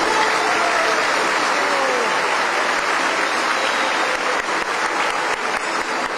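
A large audience applauding, with a few voices calling out in the first couple of seconds; the applause eases slightly near the end.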